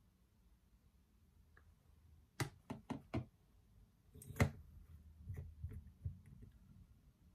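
Makeup items being closed and set down on a tabletop. Four quick clicks about halfway through, then a louder knock, followed by a few lighter taps.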